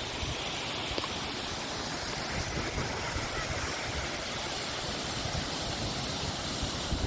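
Steady rush of lake surf, waves breaking on a sandy beach whipped up by strong wind, with wind buffeting the microphone.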